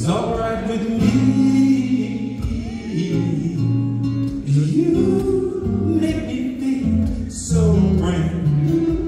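A man singing held, gliding notes to his own acoustic guitar accompaniment, amplified live through a sound system.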